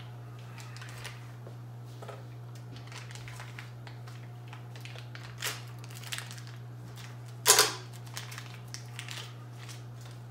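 Light clicks and rattles of small parts being handled at a workbench, with one louder, sharp clatter about seven and a half seconds in, over a steady low hum.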